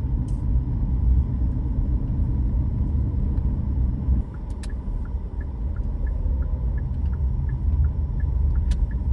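Steady low road rumble inside a moving car. From about halfway through, a light, even ticking at roughly two a second joins it: the turn signal, set for a right turn.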